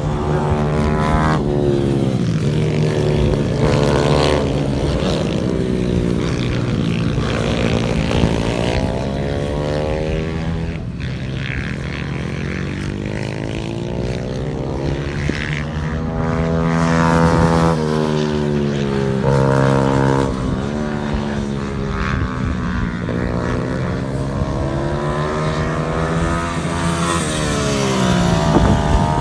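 Small-capacity pit bike engines on track, revving up and down again and again as the bikes accelerate out of corners and shut off into them. At times two engine notes overlap.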